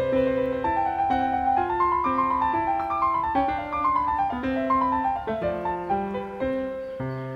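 Background piano music: a gentle melody of single notes that climbs and then falls over a steady lower accompaniment.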